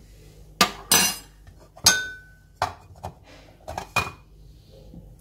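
A metal spoon and dishes being handled and set down: about seven sharp clinks and knocks, two of them ringing briefly like metal.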